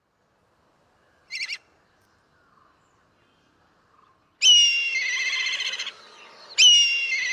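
Black kite calling: one brief high note about a second in, then two loud calls, each opening with a sharp falling note that runs into a high, quavering trill lasting about a second and a half.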